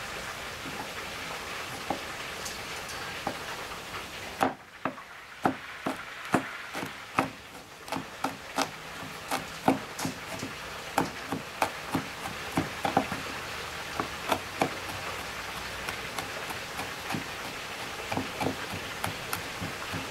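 A large kitchen knife chopping garlic cloves on a wooden cutting board: the blade knocks against the board in an irregular run, a couple of strikes a second. The chopping starts about four seconds in, thins out in the middle and picks up again near the end, over a steady hiss.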